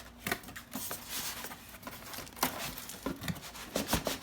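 Packaging handling as a heater is worked out of its cardboard box against tight foam inserts: irregular rustling and crinkling with scrapes and sharp knocks, the loudest knocks about two and a half seconds in and again near the end.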